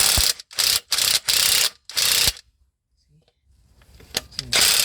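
Impact wrench with a 16 mm socket running in short bursts on the flywheel bolts, cracking them loose. There are four quick bursts in the first two seconds, a pause, then a longer run starting near the end.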